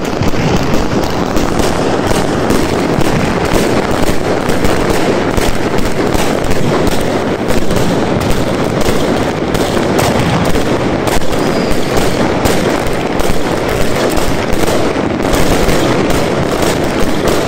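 Fireworks barrage: a rapid, unbroken volley of launches and bursting shells, many sharp bangs a second over a dense crackle that never lets up.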